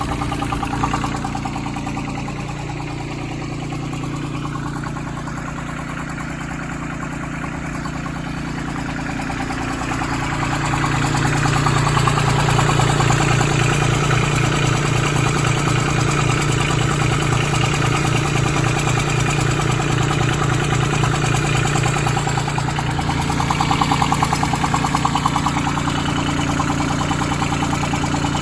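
Branson 2500h tractor's A1100 diesel engine running steadily, with the strange abnormal noise that worries the owner of this nearly new engine; he doubts it is rocker-arm clearance. The engine gets louder about ten seconds in and holds there.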